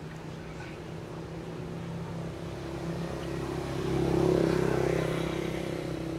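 A motor vehicle's engine running with a steady hum, growing louder to a peak about four seconds in and then easing off a little as it passes.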